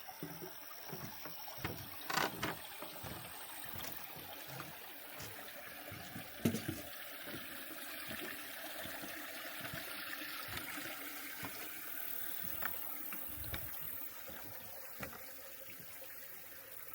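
Footsteps and rustling of someone walking on a hiking trail: a run of soft, uneven thumps about two a second over a steady hiss, with a couple of louder knocks from gear or handling of the camera.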